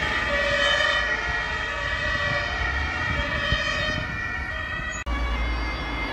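Two-tone emergency siren (Martinshorn) of ambulances driving away, with steady traffic rumble underneath. The sound cuts off abruptly about five seconds in and is followed by road traffic with a fainter siren.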